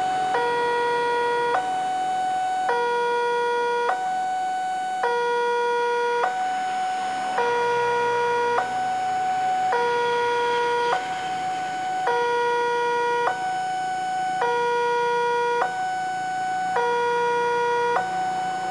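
Level-crossing warning alarm sounding with the barrier down: an electronic two-tone signal alternating between a lower and a higher note, each held about a second, over and over. It warns that a train is approaching.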